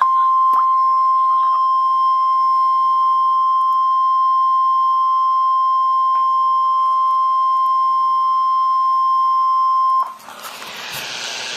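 NOAA Weather Radio 1050 Hz warning alarm tone: one steady, loud beep held for about ten seconds, the alert that comes before a watch or warning is read. It cuts off suddenly and gives way to radio static hiss.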